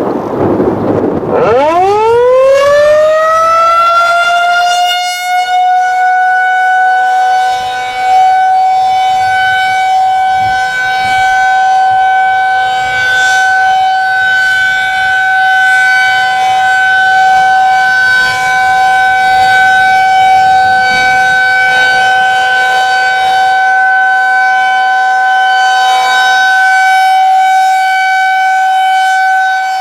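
Federal Signal 2001-SRN electromechanical tornado siren winding up, its pitch climbing over about three seconds, then holding one steady tone. This is the steady alert signal sounded for a statewide tornado siren test.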